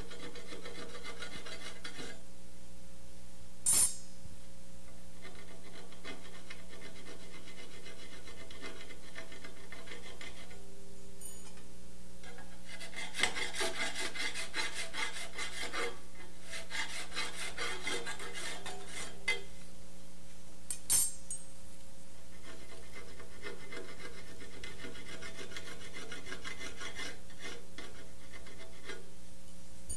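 Round hand file rasping in repeated short strokes across the leading edge of an aluminium propeller blade, dressing out a nick down to its bottom. The strokes come in runs and are heaviest in the middle; two sharp clicks stand out, one a few seconds in and one about two-thirds of the way through.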